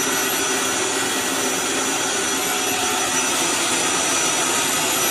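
Eureka 3670G canister vacuum cleaner running steadily, a constant rush of air with a thin high-pitched whine over it.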